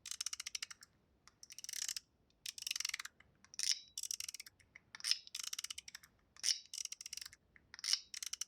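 A zirconium-and-brass mechanical fidget slider (Ling Yun 3.0) being slid back and forth, its spring-loaded ball detents clicking. The clicks come in about a dozen quick runs, each under a second, with short pauses between.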